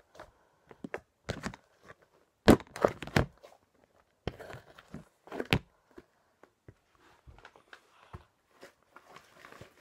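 Hands working borax-activated glitter slime in a bowl: irregular short tearing and crackling noises as the slime is pulled and handled, loudest about two and a half to three seconds in.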